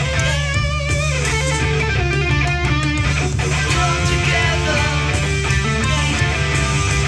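Electric guitar played through an amplified speaker, picking lead lines with bent and wavering notes over steady low notes.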